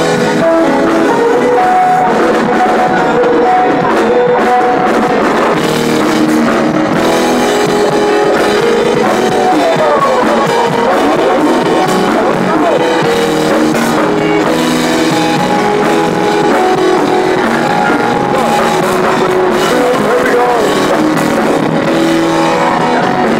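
Live band playing loud, continuous music on keyboard and electric guitar.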